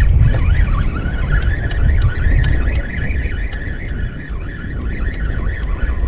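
Wind buffeting the microphone in a loud, steady rumble, with a wavering high-pitched whine of short chirps running over it.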